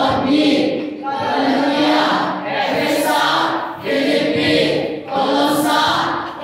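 A group of voices singing together, led by a woman singing into a microphone, in short sustained phrases of about a second each.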